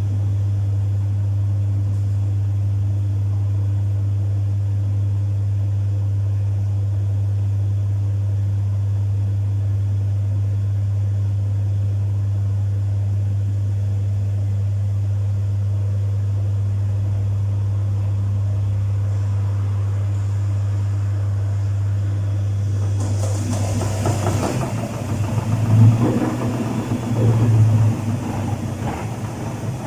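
Domus 8 kg washing machine running a full load with a steady hum. About three quarters of the way through the hum stops and gives way to a louder, uneven rumbling and churning.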